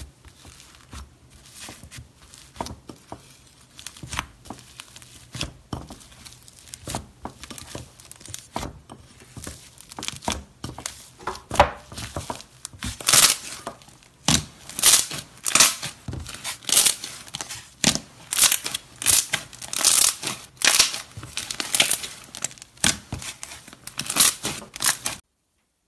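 Crunchy iceberg slime crackling as its dried crust is pressed and broken and the slime is squeezed by hand: a dense run of sharp crackles that grows louder from about halfway and stops abruptly near the end.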